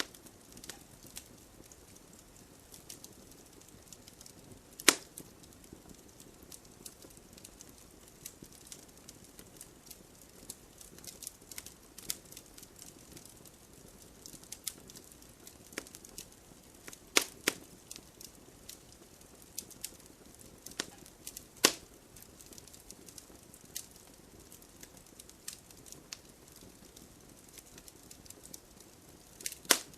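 Wood fire crackling: a steady low hiss with frequent small snaps and a few loud sharp pops, about four across the stretch.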